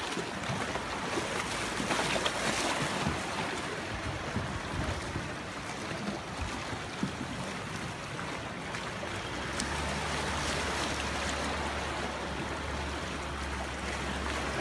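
Sea water washing at the shoreline with wind on the microphone; about ten seconds in, a steady low drone joins and holds.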